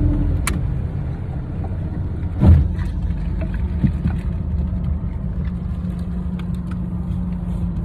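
Small boat's outboard motor running steadily, with a single thump about two and a half seconds in and a few light clicks.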